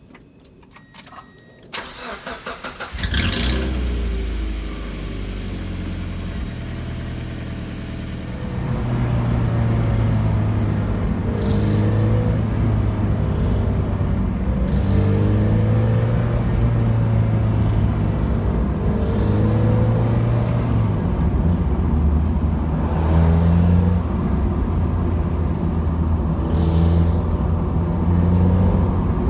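Mazda Miata's four-cylinder engine cranking and catching about three seconds in, then running, louder from about eight seconds with its speed drifting up and down. This is the running the owner finds strange; what causes it isn't said.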